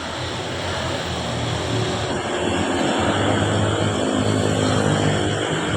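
A motor vehicle running with road and wind noise, growing louder over the first couple of seconds and then holding steady.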